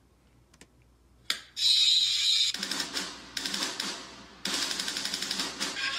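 A brief near-silent pause with a small click, then the compilation's intro begins: a sudden loud hiss followed by a fast, rattling, stuttering sound effect with pitched tones underneath.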